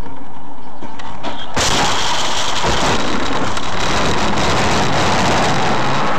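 A loud, steady rushing noise that starts abruptly about a second and a half in, with a faint engine hum underneath.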